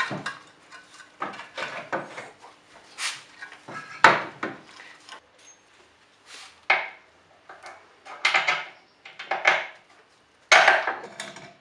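Irregular metallic clanks, knocks and short scraping rattles as a car's front lower control arm is worked up into its mounts by hand. The sharpest knock comes about four seconds in.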